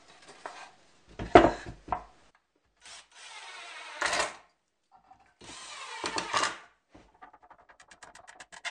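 Cordless drill/driver driving screws into plywood blocks, two runs of about a second each, with wooden knocks as the pieces are handled before them. A run of quick, evenly spaced clicks comes near the end.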